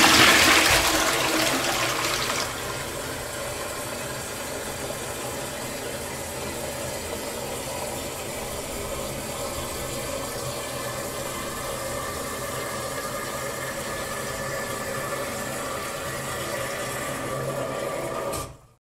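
Toilet flushing: the rush of water dies away over the first two or three seconds, leaving a steady hiss with a faint hum that cuts off suddenly near the end.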